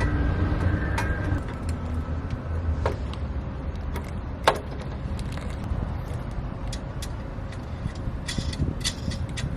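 Low engine rumble that fades over the first few seconds, with several sharp clicks and knocks, the loudest about halfway through.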